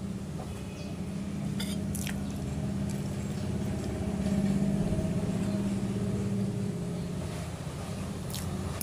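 A low engine rumble, as of a vehicle nearby, grows louder about halfway through and then eases off. A few faint clicks sound over it.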